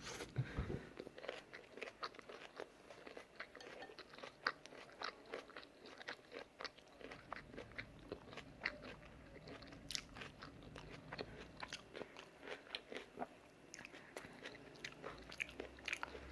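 Close-up chewing and crunching of a mouthful of stir-fried vegan udon with tofu and vegetables: irregular small crunches and clicks, several a second.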